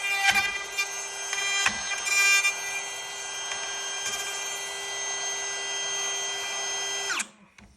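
Router running at full speed, its whine under a rough cutting noise as the bit plunges into the wood of the door edge, louder with a few knocks in the first couple of seconds. It then runs on steadily and is switched off about seven seconds in, spinning down quickly.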